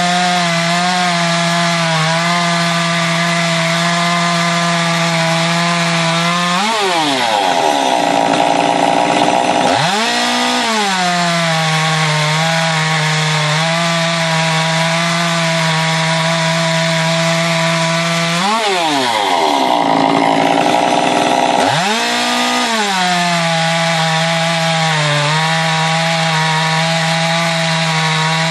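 Stihl MS201T top-handle chainsaw, a two-stroke with a modified muffler and advanced ignition timing, crosscutting a log. The engine runs steady under load in the cut. Twice it revs up sharply for about three seconds as the chain comes free of the wood, then pulls back down as it bites into the next cut.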